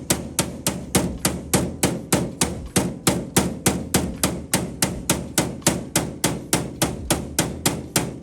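Hammer giving a rapid, even series of light taps on a metal blank plate, about three blows a second, rolling the plate into a curve to match the bus body's contour.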